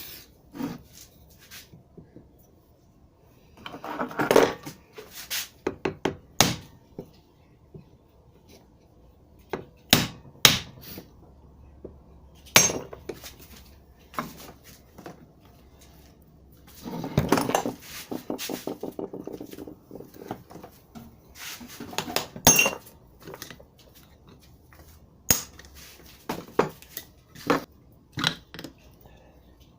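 Hammer blows and metal clanks on a steering rack as its shaft is knocked out: scattered sharp strikes, with two stretches of quick rattling strokes about four and seventeen seconds in.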